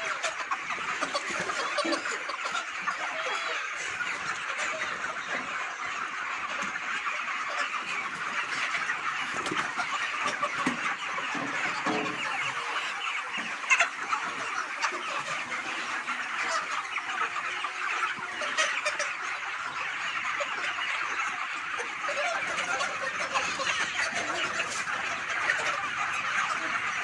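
A large flock of 45-day-old broiler chickens in a shed, many birds clucking and chirping at once in a dense, steady din. One sharp knock stands out about halfway through.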